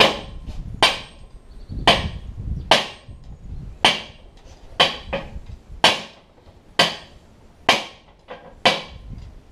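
Sledgehammer striking the end of a steel hex shaft in a John Deere 535 baler roller: about ten sharp metal-on-metal blows, roughly one a second, each with a short ring. The blows are kept slow so the shaft end doesn't mushroom while it is driven out to reach the failed bearings.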